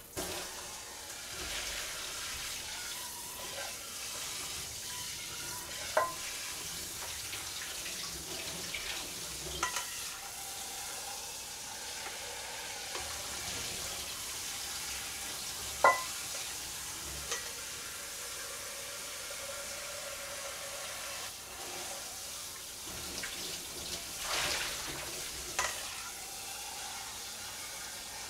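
Cold tap water running into a kitchen sink as freshly boiled naengmyeon noodles are rinsed to wash off their starch, with a few sharp clinks of cookware, the loudest about six and sixteen seconds in.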